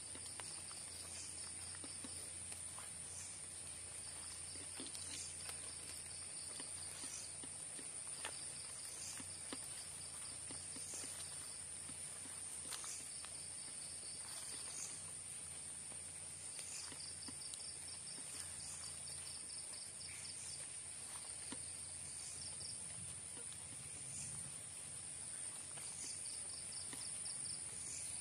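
Night insect chorus: a steady high-pitched trill, joined by another insect's pulsed chirping that comes in repeated runs of a second or two.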